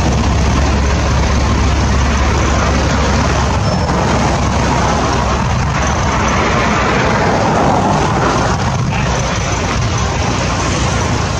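Floodwater rushing through a gap in a dirt road: a loud, steady rush of water, with a deep rumble underneath that fades about three and a half seconds in.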